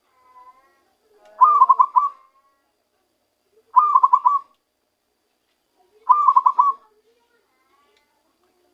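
Zebra dove (perkutut) cooing: three short phrases of quick, rippling coos, each under a second long and about two seconds apart.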